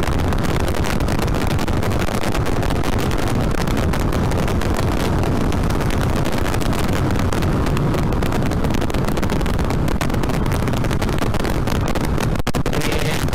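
2007 Yamaha Vixion's single-cylinder four-stroke engine running at road speed, mixed with steady wind rushing over the microphone.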